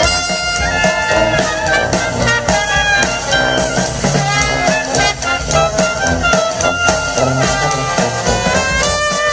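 Jazz band playing a swing tune, trumpets leading over tuba, a reed instrument and drums.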